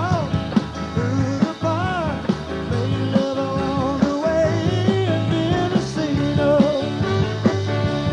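Live rock and roll band playing a song, with drums keeping a steady beat under bass, electric guitar, organ and horn lines.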